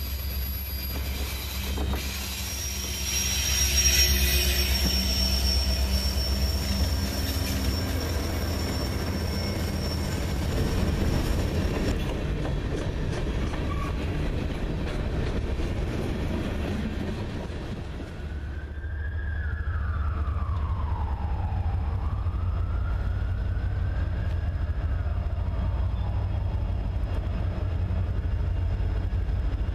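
Norfolk Southern diesel freight trains passing close by: a steady deep diesel rumble under the rolling noise of freight cars on the rails, with thin high-pitched wheel squeal in the first third. The sound changes abruptly twice as the scene cuts to another approaching train, where a faint whine falls and then rises in pitch.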